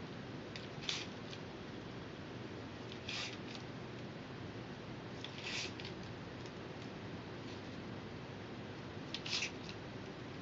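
Craft knife blade cutting through flattened barley straw against a cutting mat, in short scratchy strokes: four clear ones, spaced a few seconds apart, with fainter ones between.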